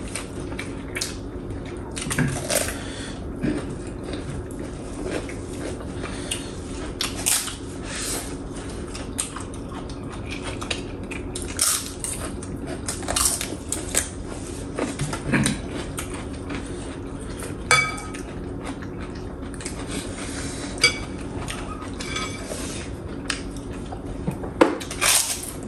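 Utensils clinking and scraping against dishes while people eat a meal, in scattered short knocks with a couple of ringing metal clinks in the second half. A steady low hum runs underneath.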